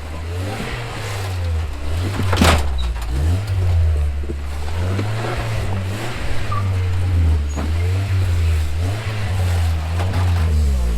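Off-road vehicle engine running at low revs while rock crawling, its pitch rising and falling, with a sharp knock about two and a half seconds in.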